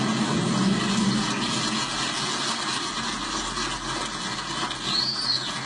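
Crowd applauding, a steady clapping that tails off slightly toward the end.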